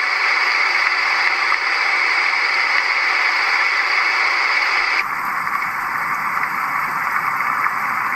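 Recorded rain sound played from a Roffie white noise sound machine's small speaker: a steady rain hiss. About five seconds in it cuts abruptly to another rain recording with less hiss, as the machine steps to its next sound.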